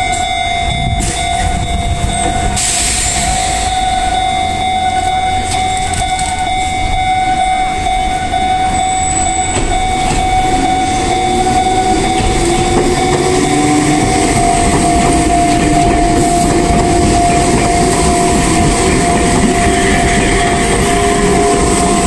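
Japanese level crossing alarm sounding a steady electronic tone while an Enoshima Electric Railway (Enoden) train pulls through the crossing. From about halfway the train's rumble and rising motor whine build up and grow louder toward the end.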